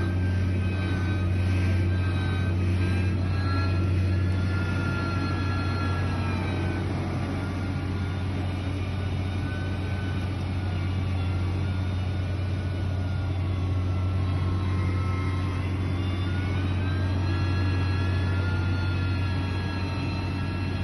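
Heavy construction machine's diesel engine running steadily with a deep drone, a higher whine above it that drops in pitch about six seconds in and climbs again about two-thirds of the way through.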